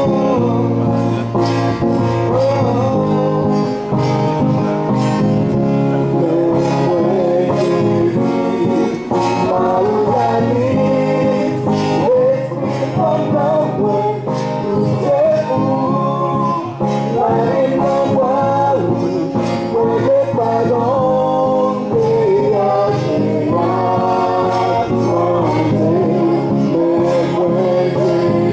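A vocal trio singing a gospel song with instrumental accompaniment, the melody moving over steady chords and a regular beat.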